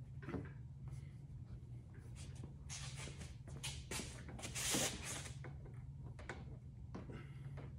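Soft handling noises: scattered light clicks, rustles and a short scrape as a plastic kayak hull and its wiring are handled, over a steady low hum.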